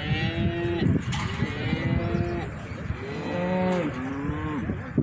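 Cattle in a working pen mooing: about four long, bending calls in a row, the last two overlapping, over a steady low rumble of commotion.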